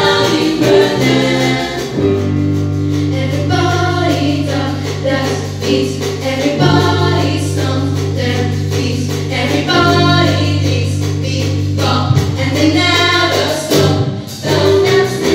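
Live band music: a group of young female voices singing in close harmony over long held electric-bass notes and a drum kit.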